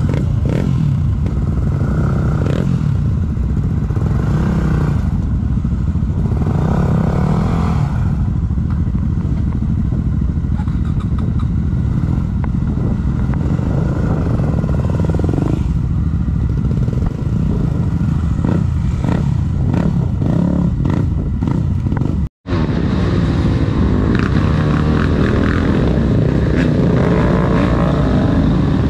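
Single-cylinder dual-sport motorcycle engine running steadily under way, with a run of rattling knocks in the middle. The sound cuts out for an instant about 22 seconds in, then the riding resumes.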